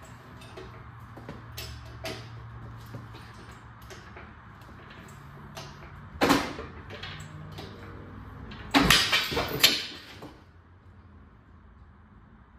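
Knocks and clatter of metal shop work: scattered light clicks, one sharp knock about six seconds in, and a louder run of rattling clanks a little after the middle, then quieter.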